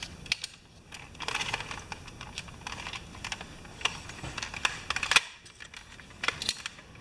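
Irregular light clicks and short scraping rustles of small plastic parts being handled and fitted together by hand, from the toy fire truck's gearbox and cover plate.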